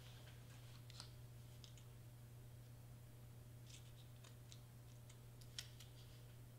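Near silence: a low steady hum with a few faint clicks and taps from handling cardstock pieces and a hot glue gun, the sharpest click a little after five seconds in.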